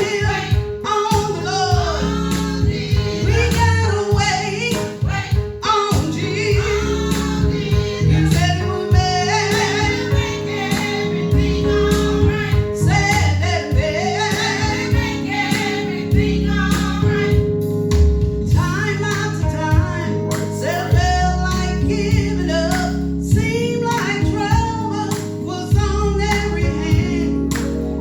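Church choir singing a gospel song over instrumental accompaniment.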